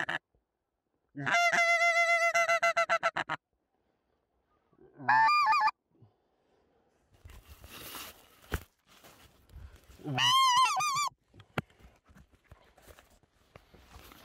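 Hand-blown goose call worked to a passing flock: a long run of rapid honking clucks, then single honks about five and ten seconds in. Between them, faint rustling of dry straw stubble and phone handling, with a couple of clicks.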